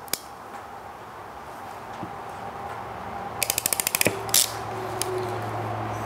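A hand crimping tool pressing a ring terminal onto a wire. About three and a half seconds in, it gives a quick run of about ten clicks as the handles close, then one louder click as it lets go.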